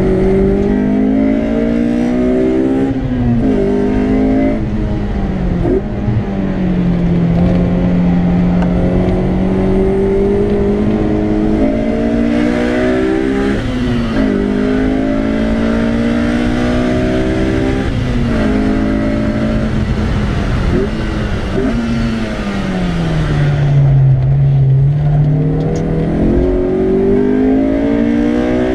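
Honda S2000's four-cylinder engine heard from inside the cabin under hard driving, its revs climbing and dropping back sharply again and again. Near the end it sinks to its lowest pitch for a couple of seconds, then climbs again.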